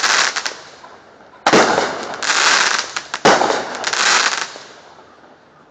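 Fireworks going off: two sharp bangs about two seconds apart, each followed by about a second of crackling that fades out. The tail of an earlier burst dies away at the start.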